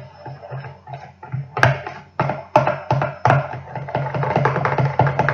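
Background music with a steady percussive beat, with a few sharp taps or clicks standing out over it.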